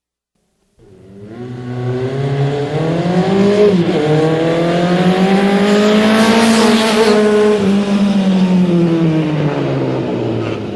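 A car engine sound effect from an electronic keyboard. It starts about a second in and swells up, rises slowly in pitch, then sinks again as it fades near the end, like a car driving past.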